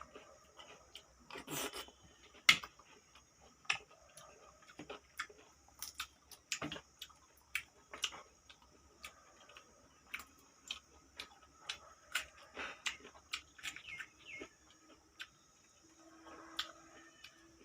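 Close-up eating sounds: a person chewing pork salad, with short sharp clicks and crunches about twice a second at an uneven pace.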